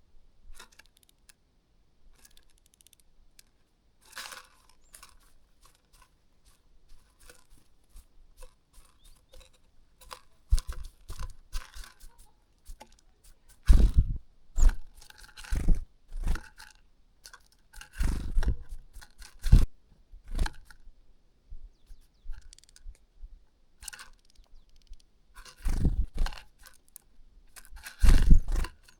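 A feeding bird close to the microphone, pecking and scratching at food with irregular crunchy clicks and scrapes. Dull thumps come several times in the second half.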